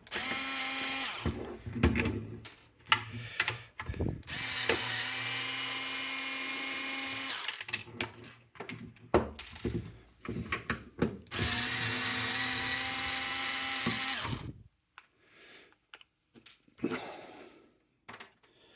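Electric screwdriver running in reverse in short spurts and a few steady runs of two to three seconds, backing out rusted, corroded screws from the casing of a water-damaged stereo, with clicks and knocks of the screws and parts in between. Near the end it stops and it goes almost quiet.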